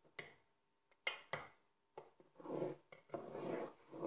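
A spoon stirring soup in a metal pot. It knocks against the side a few times in the first two seconds, then scrapes around the pot in three longer strokes.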